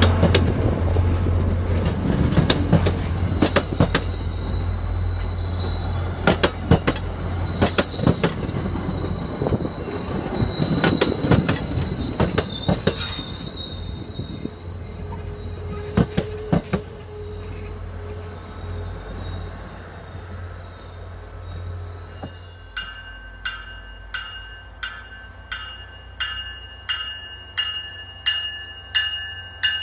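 Bilevel commuter rail coaches rolling past, wheels clacking over rail joints and flanges squealing in high thin tones, the sound slowly fading as the train moves away. About 22 seconds in it changes abruptly to a bell ringing steadily, about one and a half strokes a second.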